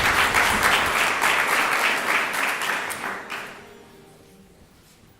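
Audience applauding, the clapping dying away after about three and a half seconds.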